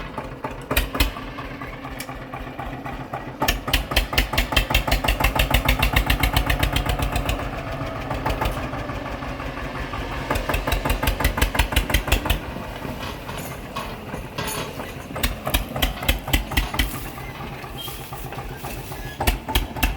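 Eicher 242 tractor's single-cylinder diesel engine being started and running, each firing stroke heard separately. The beat quickens sharply about three and a half seconds in, settles into steady running, and slows toward the end.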